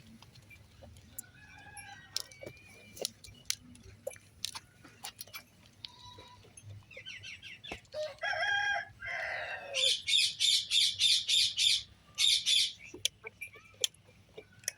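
Farm animal calls: a pitched call about eight seconds in, then a loud run of rapid pulsed calls lasting nearly three seconds, over scattered small clicks.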